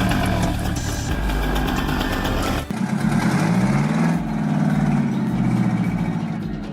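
A large engine running, with an abrupt change about two-thirds of a second short of three seconds in, after which the engine revs up and down.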